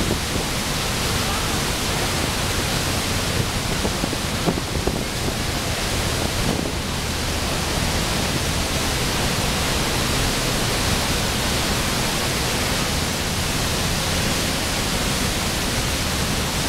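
The Rhine Falls pouring into the river right beside the boat: a loud, steady rush of crashing white water.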